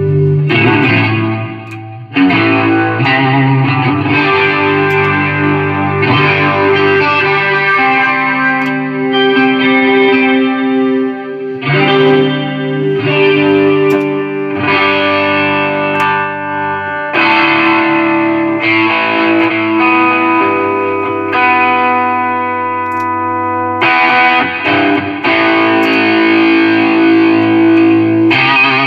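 Electric guitar played through a Line 6 Helix multi-effects unit with a distorted tone, sustained chords ringing out and changing every few seconds, played as a sound test of the freshly repaired unit.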